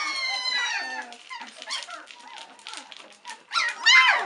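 Three-week-old White Swiss Shepherd puppies whining and crying, hungry and impatient for their mother to return to feed them. A long falling whine opens it, short scratchy clicks follow as they scramble on the quilt, and a loud high cry comes near the end.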